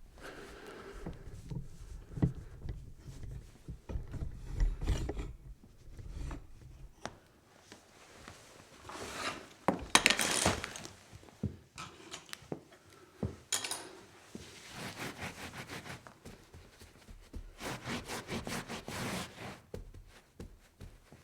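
A run of foley sound effects: rubbing and scraping, scattered knocks and loud noisy swishes, with a fast series of clicks near the end.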